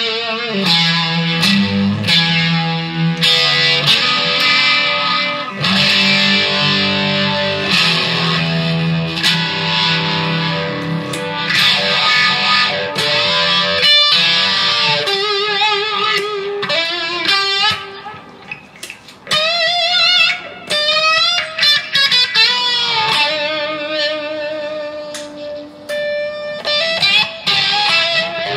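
Solo electric guitar played loud in an acid-rock style. Held low notes come first, then a lead with bent notes and wide vibrato in the second half.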